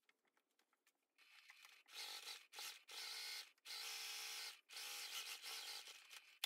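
Sewing machine top-stitching: from about a second in it runs in five or six short spurts, stopping and starting between them.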